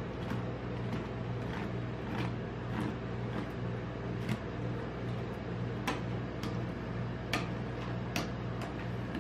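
Metal spatulas tapping and scraping on the frozen metal plate of a rolled-ice-cream pan as a sheet of ice cream is spread and smoothed flat. The spatula strikes come as sharp clicks, roughly one or two a second, over a steady low hum.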